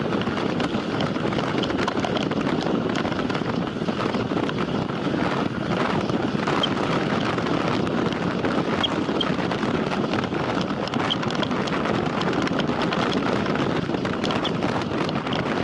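Steady wind rushing over the microphone of a camera on a time-trial bicycle ridden at speed, mixed with tyre and road noise.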